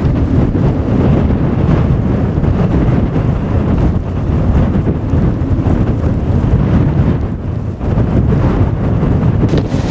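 Strong blizzard wind gusting against the microphone: a loud, low rumble that swells and eases unevenly.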